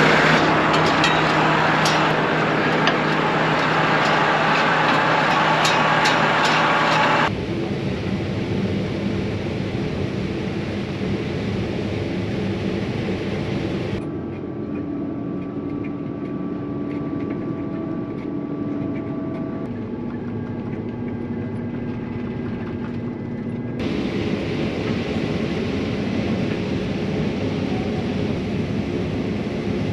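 Combine harvester running steadily while harvesting corn: a continuous engine and machinery drone with steady tones. The sound changes abruptly three times, and is loudest at the start.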